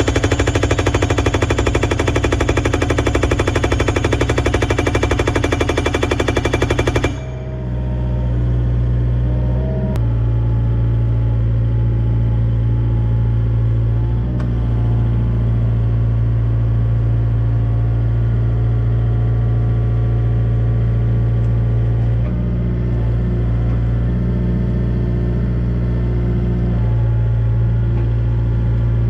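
Hydraulic rock breaker on an excavator hammering a timber fence post into the ground with rapid, evenly spaced blows, stopping suddenly about seven seconds in. After that the excavator's diesel engine runs steadily as the arm moves.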